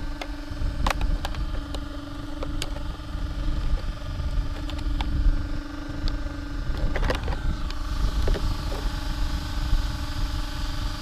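A steady hum from the RC buggy's electronic speed controller cooling fans, with scattered clicks and rattles of the body shell and its clips being handled, busiest about seven seconds in.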